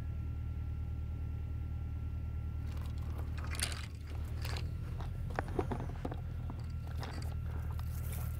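Footsteps crunching on sandy, gritty ground and brushing through dry grass, a scatter of irregular crunches and rustles that begins about three seconds in, over a steady low hum.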